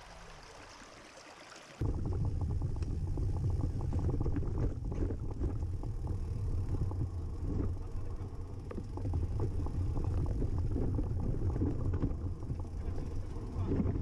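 A shallow stream running over stones for about two seconds, then, after an abrupt cut, a steady loud low rumble of wind and handling noise on the moving camera's microphone.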